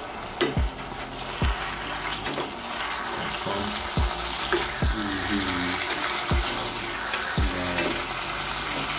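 Pork, green peppers and onions sizzling in a pot on a gas stove while a wooden spoon stirs them, with several dull knocks of the spoon against the pot.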